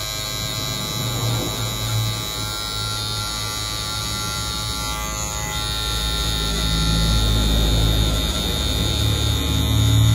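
Electric hair clippers buzzing steadily while cutting a fade, growing louder about halfway through.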